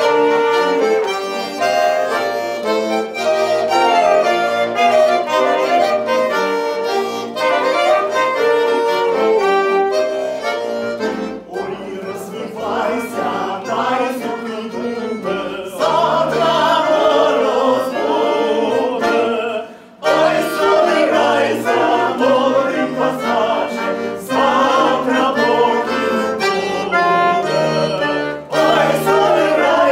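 Live button accordion playing a folk-style song, with several voices singing along and trumpet and saxophone playing at times. The music drops out briefly about two-thirds of the way through, then picks up again.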